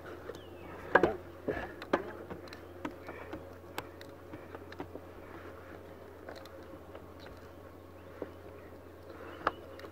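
Scattered small knocks and clicks from handling a plastic handline fishing spool and its line, the loudest about a second in, another a second later and one near the end, over a steady faint hum.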